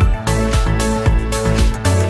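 Electronic background music with a steady beat of about two beats a second.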